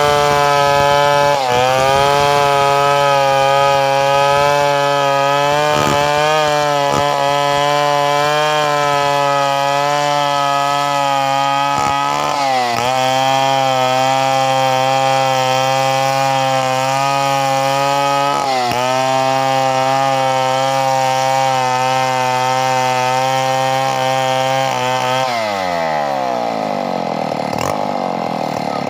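Two-stroke chainsaw running at high revs, a steady high engine note that dips briefly and recovers three times, then winds down sharply as the throttle is released near the end.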